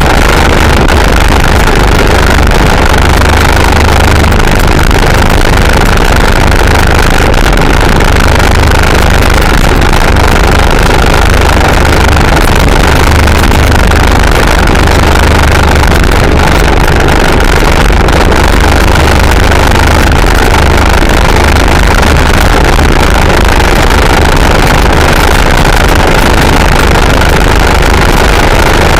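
Modified 160 cc scooter engine with an open exhaust held at about 9,000 rpm at wide-open throttle, running steadily at top speed, with heavy wind rush on the microphone.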